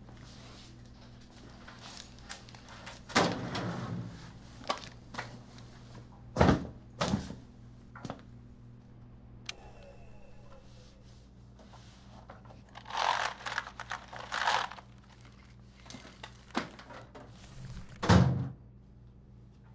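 Handling and small knocks around an office desk, with rustling and two sharp knocks, over a low steady hum. Near the end a metal drawer unit gives a heavy thunk, the loudest sound.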